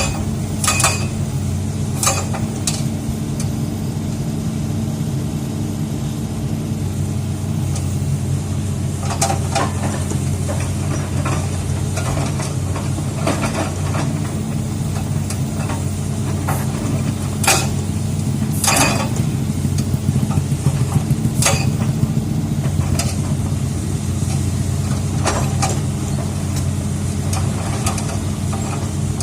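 Excavator's diesel engine running steadily, with a handful of sharp, separate metallic clanks from the machine working on rock.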